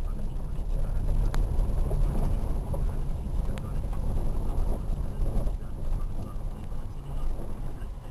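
Dacia Logan driving over a rough dirt mountain road, heard from inside the car: a low, uneven rumble of engine, tyres and bumps, with a couple of light clicks.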